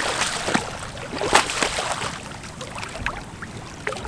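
Water splashing in the shallows: rubber boots wading and a released ray splashing at the surface as it swims off. There is a run of short splashes, the sharpest about a second and a half in.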